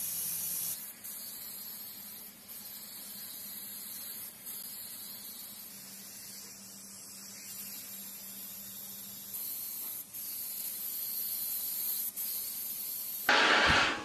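Paint spray gun hissing steadily, with a few short breaks and changes in the hiss. Near the end there is a brief loud burst of noise.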